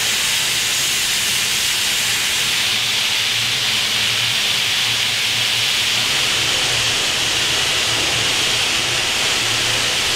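Steam hissing loudly and steadily from the boiler of the South African Class 26 'Red Devil' steam locomotive while it stands in steam.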